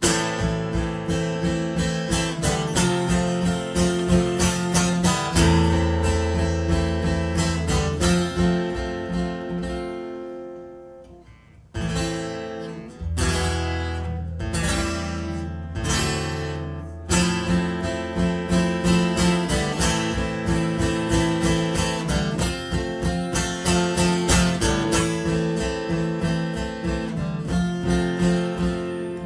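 Acoustic guitar playing a solo instrumental intro in steady strummed chords. Around ten seconds in the strumming dies away, a few single chords are struck and left to ring, then the strumming picks up again.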